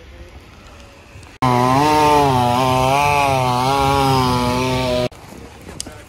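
Chainsaw running at high revs, its pitch wavering slightly as it works, cutting through a fallen tree's limbs. It starts abruptly about a second and a half in and stops just as suddenly about a second before the end.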